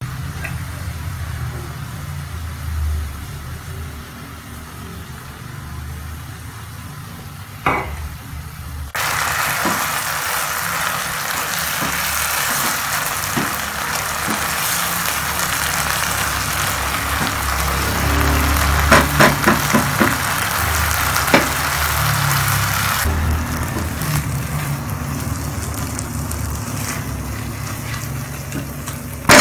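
Sliced onions sizzling in a frying pan as they caramelize, with a spatula scraping and tapping against the pan now and then, several times in quick succession about two-thirds of the way through. The sizzle turns suddenly louder about nine seconds in and drops back near the end, over a low rumble.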